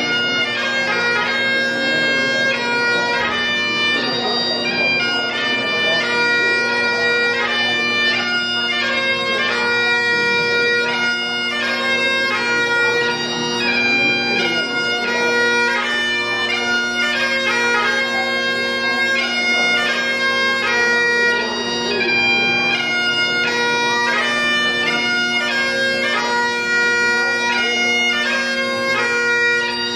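Great Highland bagpipe played solo: the drones hold one steady low chord while the chanter plays a lively melody of quickly changing notes above it, without a pause.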